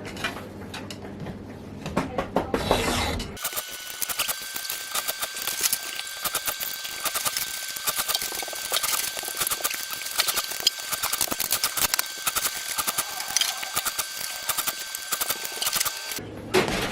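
Chainsaw file rasping across the cutter teeth in quick strokes: a dense run of sharp metal-on-metal scraping clicks, changing abruptly to a thinner, higher sound about three seconds in.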